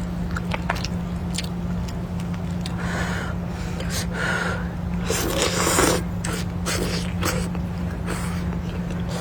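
Eating noodles: several slurps, the longest about five seconds in, with chewing and small sharp clicks in between, over a steady low hum.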